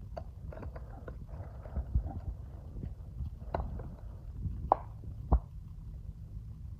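Low steady rumbling drone from a 2016 Cadillac SRX's driveline, with a few sharp knocks, the loudest about three quarters of the way in; the sign of a bad vibration that the shop traces to the driveshaft.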